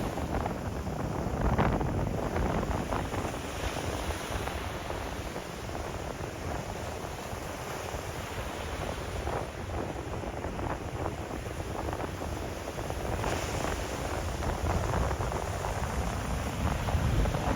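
Sea waves washing and breaking on the shore in a steady wash of surf, swelling a little louder near the start and again near the end. A low rumble of wind buffets the microphone underneath.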